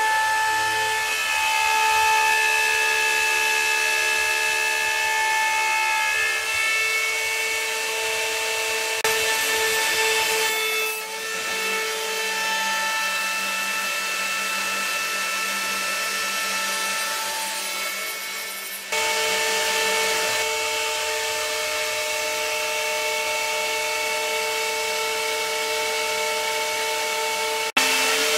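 CNC router spindle running with a steady high whine as its end mill cuts a wooden pattern, the tone shifting a little with the load. The sound changes abruptly twice, about two-thirds of the way through and near the end.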